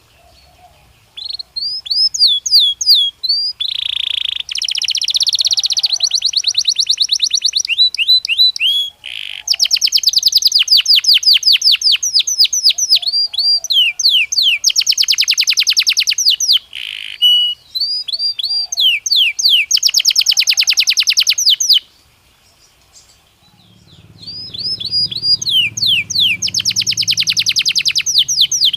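Belgian canary singing: phrases of fast trills and repeated sweeping whistled notes, with a short break near the end before the song starts again.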